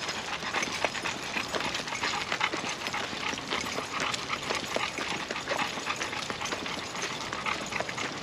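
Steady irregular patter of footsteps and dog paws from a walking pack of dogs, many small clicks and taps.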